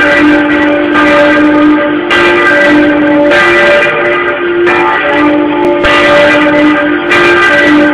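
Church bells rung a slancio (swung full circle), the clappers striking about once a second. The strikes overlap into a continuous loud peal, with two low bell notes taking turns.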